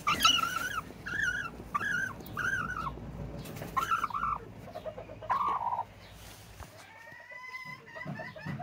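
A broody Serama bantam hen making a run of short, wavering complaining calls, about six in the first six seconds; this is the grumbling of a broody hen disturbed on her eggs. Fainter short calls come near the end.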